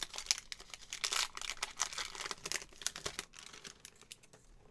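Foil trading-card booster pack wrapper crinkling and crackling as it is handled and the cards are pulled out, fading out about three and a half seconds in.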